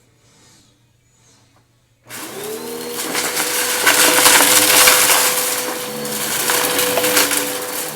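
Bissell vacuum cleaner switched on about two seconds in, its motor spinning up quickly to a steady whine. Dense crackling and crunching over the whine, as it picks up debris from a shag rug.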